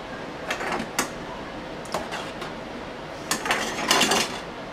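A few light knocks and short clattery scrapes at a stainless-steel kitchen sink as tomatoes are handled, scattered irregularly over a steady background hiss.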